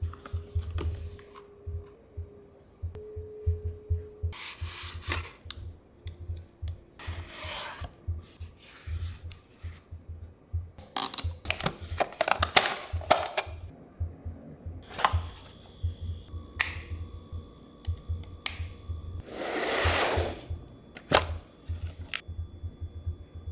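Cardboard box and plastic packaging of Soundcore Frames audio glasses being handled and opened: short rubs, slides and taps, with a cluster of louder rustles about halfway through and a longer sliding rustle near the end.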